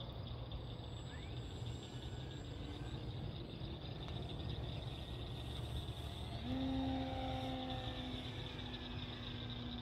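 Evening crickets chirping steadily, and about six seconds in the FMS Fox glider's electric motor and propeller spool up with a quick rise in pitch, then hold a steady hum.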